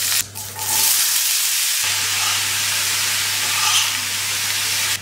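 Hot oil sizzling loudly in a stainless steel frying pan as curry leaves hit a mustard-seed tempering. It is a steady hiss that starts just under a second in and cuts off suddenly near the end.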